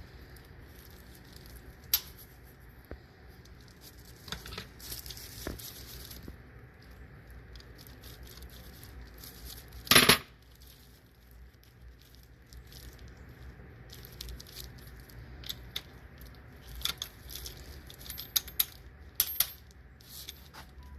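Metal tools and parts clinking and knocking in scattered light taps, with one loud metallic clatter about halfway through and a quick run of taps near the end.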